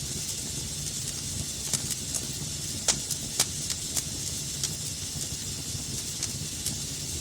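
Wood fire burning in a fireplace: a steady hiss and low rumble of flames, with scattered sharp crackles and pops, the loudest two close together about three seconds in.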